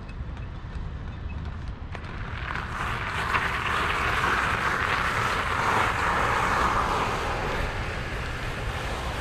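Dual-motor e-bike being ridden, with a steady low rumble of wind on the microphone. About two and a half seconds in, a loud rushing noise swells up and runs for some five seconds before easing.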